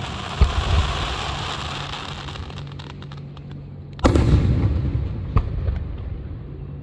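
Fireworks going off: a crackling shower fading out with a couple of thumps near the start, then a loud bang about four seconds in followed by crackle, and another sharp bang a second later.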